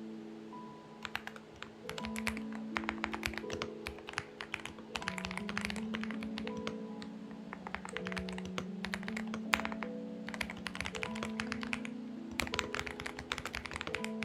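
Xinmeng X98 mechanical keyboard typing in quick bursts of key clicks, over soft background music with slow, sustained chords.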